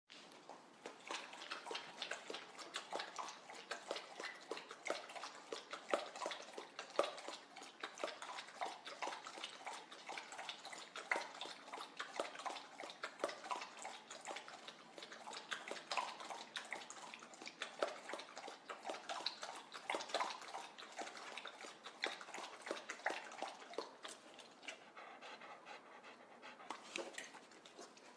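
Wolfhound drinking water, lapping with a quick, steady run of wet laps that thin out briefly near the end.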